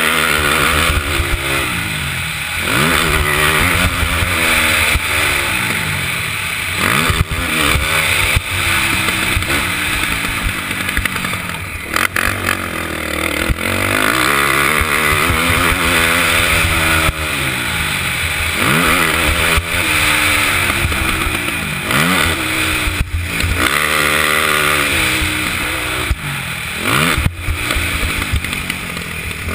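KTM 450SX quad's single-cylinder four-stroke engine revving up and falling away over and over as it accelerates, shifts and backs off, with wind rushing over the helmet-camera microphone. A few sharp knocks are heard along the way.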